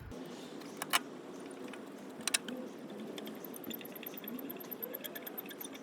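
A few sharp light metallic clicks and clinks over low steady background noise, from a floor jack being handled and set in place under the car.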